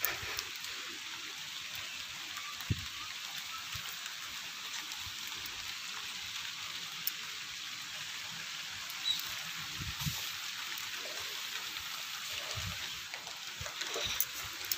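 Steady rain falling, an even hiss, with a few short knocks now and then.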